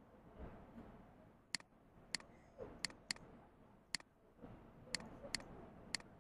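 Faint, sharp clicks of a computer mouse and keyboard, about eight single clicks at uneven intervals, with a quick pair of clicks near the middle.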